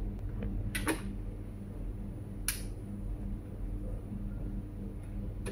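A vinyl record being handled and set onto a portable suitcase turntable's platter: two sharp clicks, about a second in and again about two and a half seconds in, over a steady low hum.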